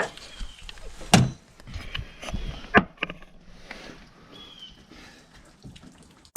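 Irregular sharp knocks and clanks of tools and metal parts being worked on an engine, loudest about a second in and again near three seconds, with smaller taps between.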